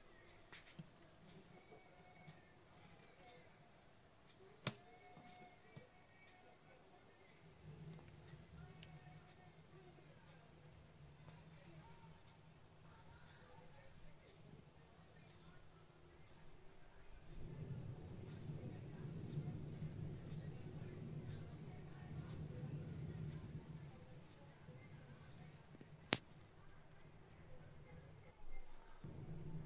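Faint crickets chirping: a steady run of short, high, evenly spaced chirps. A low hum comes in about a quarter of the way through and grows louder past the middle, with a single sharp click near the end.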